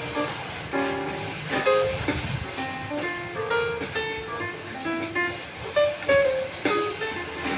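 Background instrumental music: a melody of short plucked guitar notes.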